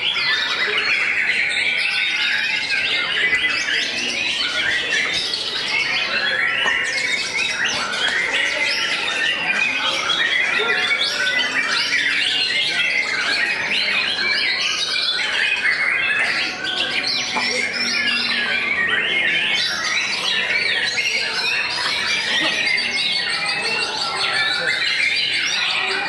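Several caged white-rumped shamas singing at once: a dense, unbroken stream of quick, overlapping whistled phrases.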